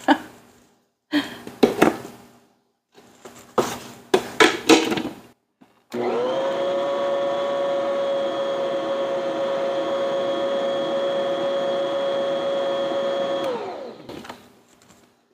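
Electric stand mixer starting up, running steadily for about seven seconds to mix flour into cake batter, then winding down. Before it starts there are a few knocks and clatters.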